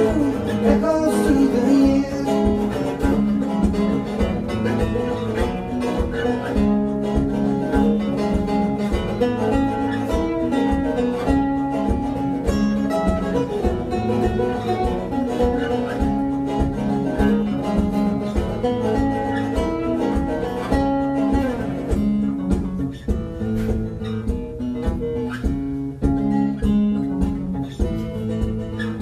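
Acoustic guitar played live, a steady strummed instrumental passage without singing.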